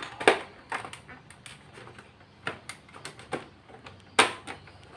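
Plastic snap clips on an all-in-one PC's casing popping loose one after another as the panel is pried off with a pry tool: a string of sharp clicks, the loudest about a third of a second in and another just after four seconds in.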